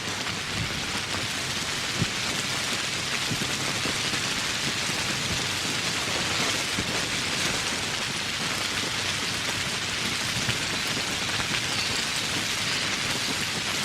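Steady tropical rain falling, with individual drops ticking close by. There is one slightly louder drop hit about two seconds in.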